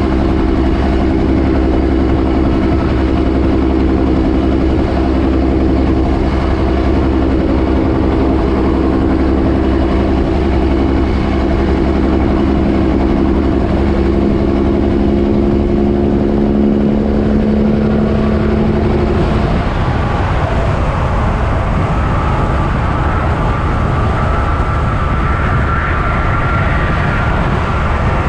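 Kenworth semi-truck's turbo diesel engine pulling a loaded lowboy at highway speed, heard from outside the cab over wind and tyre noise. Its low steady drone cuts out about two-thirds of the way through, and a higher whine rises toward the end.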